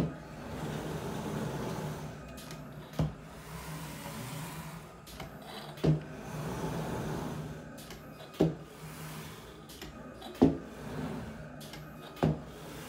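Computerized mat cutter at work on a sheet of mat board: its motors hum steadily as the cutting head travels along the gantry. A sharp clack comes about every two to three seconds, six in all.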